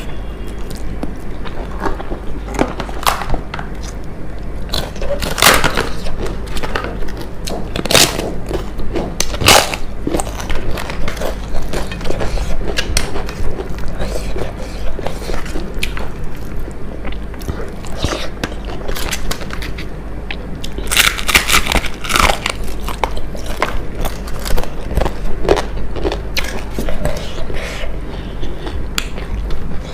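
Close-miked eating: crunching bites and chewing of crisp food, with irregular sharp crunches, the loudest clusters about a fifth of the way in and again around two-thirds through, over a steady low hum.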